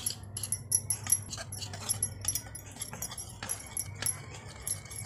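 Metal wire whisk clicking and scraping irregularly against a ceramic bowl while gram flour is stirred with water into a batter, over a low steady hum.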